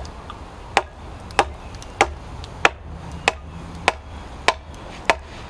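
A hewing hatchet chopping into the edge of a board held upright on a chopping block. About nine sharp, evenly spaced chops come roughly every 0.6 s. These are the scoring cuts made before hewing the face flat.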